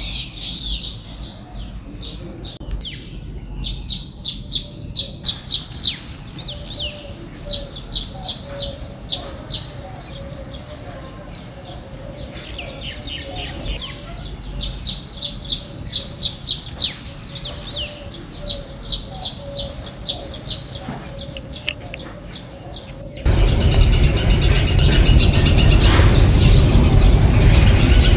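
Small birds chirping in quick runs of short, high chirps. About 23 seconds in, this cuts to a much louder, steady noise with a high whine.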